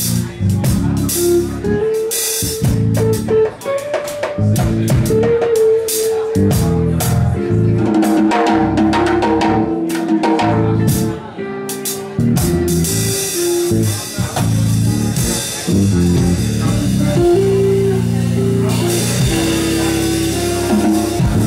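Live jazz trio playing: electric guitar picking single-note lines over walking bass and a drum kit, with frequent cymbal and snare hits. The cymbals swell into a denser, steadier wash about halfway through.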